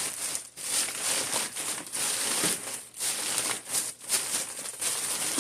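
Bags and backpack fabric rustling and crinkling in irregular bursts of handling as food is stuffed into a backpack's main compartment.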